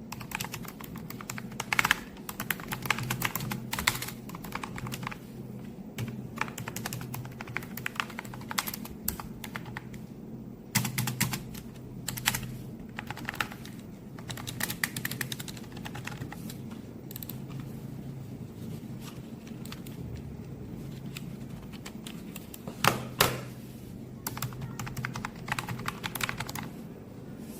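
Typing on the MOFII wireless keyboard with round keycaps: runs of quick key clicks broken by short pauses, with a few louder key strikes. A low steady hum sits underneath.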